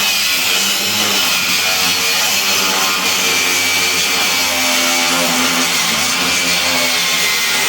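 A power tool running continuously at a steady speed, with a high whine that wavers slightly in pitch.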